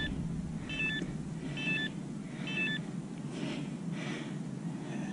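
Garmin handheld GPS beeping as its keys are pressed to step through the menus: four short electronic beeps about a second apart, then a few soft handling noises.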